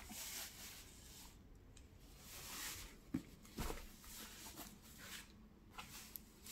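Fabric dust bag rustling and swishing as it is handled and pulled open, with two short, soft knocks about three seconds in.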